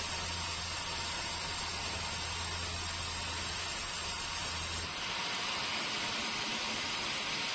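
Sawmill running: a steady, hiss-like noise over a low hum. About five seconds in, the hum stops abruptly and the noise changes character.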